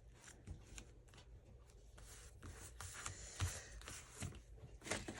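Faint rustling and light taps of paper being handled and pressed down by hand, with a few small clicks, busier in the second half.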